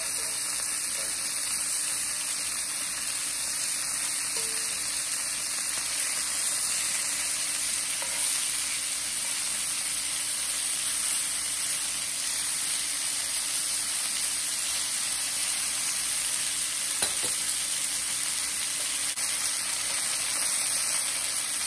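Flour-dredged chicken thighs sizzling steadily as they sear in hot olive oil in a cast iron skillet.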